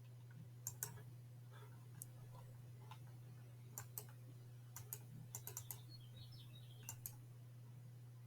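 Scattered computer keyboard and mouse clicks, a dozen or so at irregular spacing and several in quick pairs, over a steady low hum.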